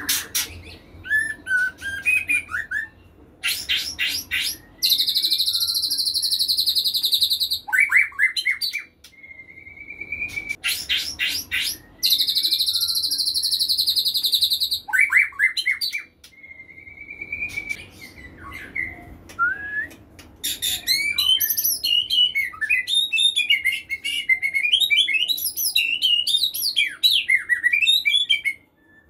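A male white-rumped shama (murai batu) in full, continuous song. Its song mixes quick rattling clicks, clear whistled notes and two long buzzy high trills. In the last third comes a dense run of fast phrases that rise and fall in pitch.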